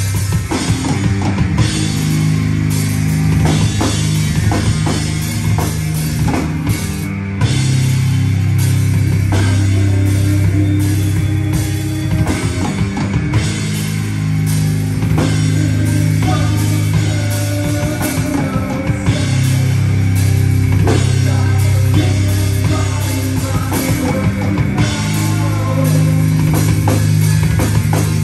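Rock band playing live and loud: electric guitar and bass guitar over a drum kit, with a heavy bass line.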